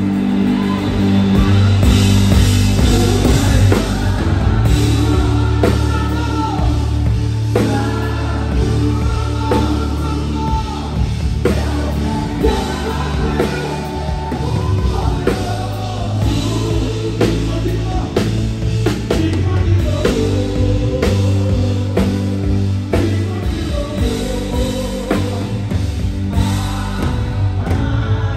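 Live gospel worship band playing a song: a singer over drum kit, bass and keyboard, loud through the stage sound system.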